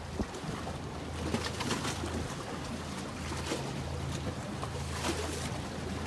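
Steady low hum of a boat engine running, under wind and water noise, with a few light taps.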